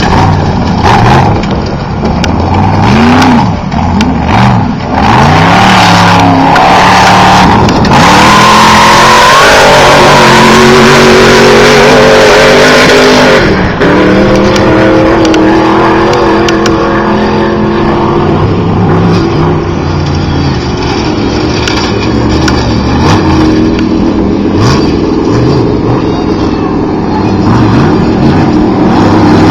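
Class 1 unlimited off-road race buggies' engines revving hard through a turn, the pitch rising and falling with the throttle. About eight seconds in the sound turns loud and rushing for several seconds with a rising engine note, then settles into a steady high-revving run.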